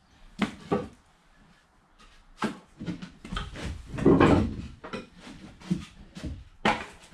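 Irregular knocks and clunks of removed boat parts and debris being handled and tossed out, with a longer, louder clatter about four seconds in.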